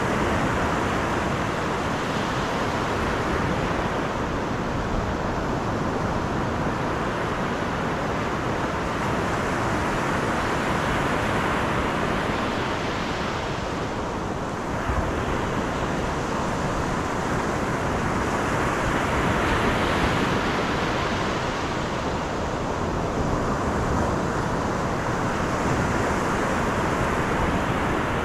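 A car driving, with steady road and wind noise.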